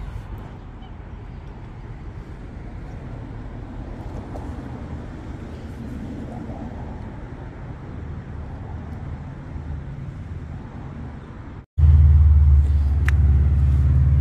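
Steady low outdoor rumble. About twelve seconds in, after a brief dropout, it jumps to a much louder, deeper rumble.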